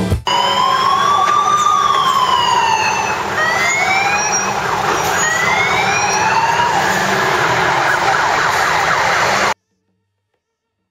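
Emergency vehicle siren wailing, its pitch slowly rising and falling, over the noise of passing road traffic. It cuts off suddenly near the end.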